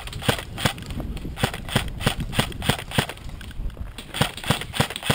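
Quick footsteps on gravel and concrete, about three steps a second, each a crunch with a low thud.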